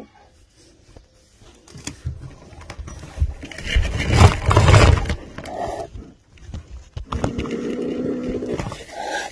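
Frightened feral kitten growling: a loud burst of hissing and scuffling about four seconds in, then a steady low growl held through the last couple of seconds.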